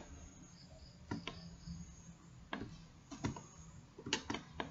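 Computer mouse and keyboard clicking: about nine sharp, irregular clicks, several in quick succession near the end, over faint low background noise.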